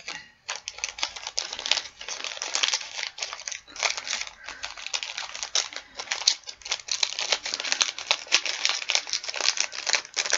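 Foil Pokémon card booster pack wrapper crinkling steadily as it is handled, with many small crackles.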